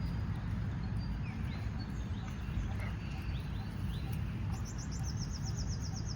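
Outdoor ambience of small birds calling: a few short falling chirps, then a rapid high trill near the end, over a steady low rumble.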